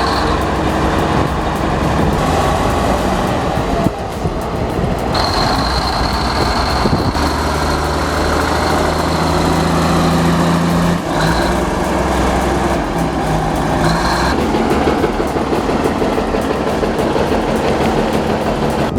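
Heavy diesel bulldozer engines running hard with a steady drone, a high whine coming and going and the engine note shifting several times.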